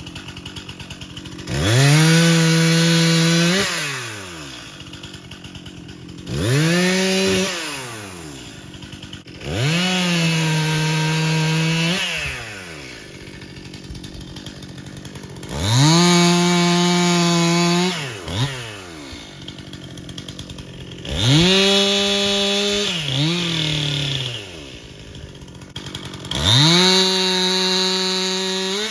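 Stihl MS261C two-stroke chainsaw bucking a dead ash trunk into chunks. It is throttled up six times, each time rising to a steady high pitch for a couple of seconds, then dropping back to idle between cuts.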